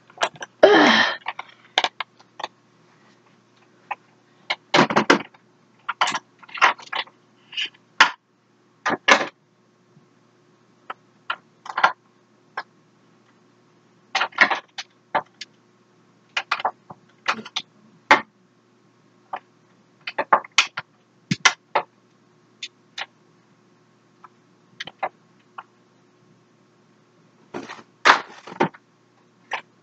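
Makeup products and containers being handled and put away: irregular small clicks, knocks and clatters. There is a longer rattling shuffle about a second in and another near the end.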